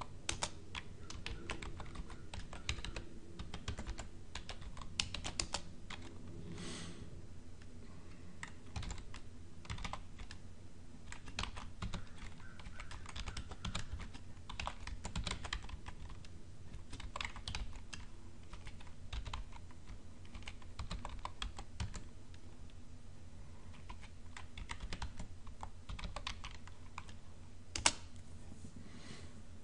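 Computer keyboard typing in irregular runs of key clicks over a low steady hum, with a louder key press near the end as the command is entered.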